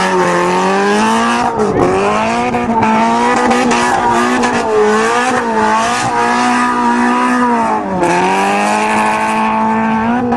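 Small Japanese car engines revving hard under racing acceleration, the pitch climbing steadily and dropping sharply at gear changes, about two seconds in and again near eight seconds.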